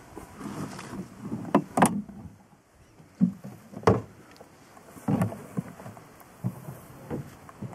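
Irregular knocks, thumps and rattles from an open safari vehicle jolting over rough grassland. The loudest knocks come about two and four seconds in.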